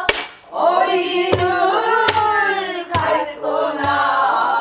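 A woman sings a slow, gliding Korean folk vocal line in the Namdo style and accompanies herself on a buk barrel drum, striking it with a stick about once every 0.8 seconds.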